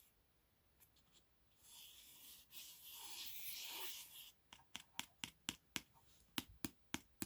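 Faint rustling of hands handling the parts of a loudspeaker being taken apart, lasting about three seconds. About halfway in it gives way to a run of sharp light clicks, roughly three a second.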